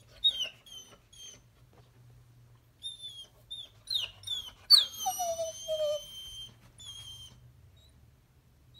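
Labradoodle whining: a series of short high-pitched whines, then a longer drawn-out whine about five seconds in that falls slightly in pitch, and one more short whine after it.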